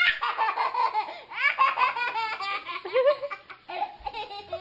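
A toddler laughing hard, in quick high-pitched bursts of giggles with short breaks between them.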